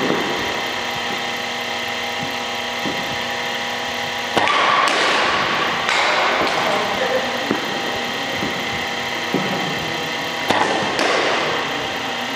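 A small engine or motor running steadily, with scattered knocks and two louder bursts of noise, about four and ten seconds in.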